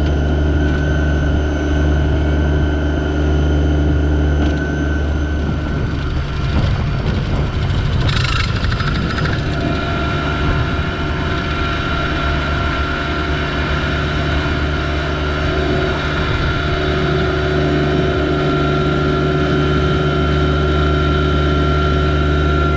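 Yanmar SA324 compact tractor's three-cylinder diesel running steadily, with a steady high whine over the engine note. About eight seconds in, the engine sound turns briefly rougher and a short harsh scrape or clatter is heard.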